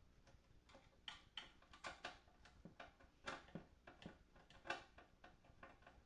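Irregular light clicks and taps of small parts and tools being handled while an amplifier is taken apart, about a dozen over a few seconds, the loudest near the end.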